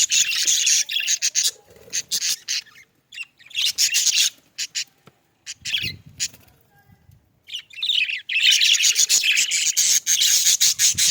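A flock of budgerigars chirping and chattering in rapid, overlapping calls. The chatter thins to scattered chirps in the middle, then swells back to full chatter.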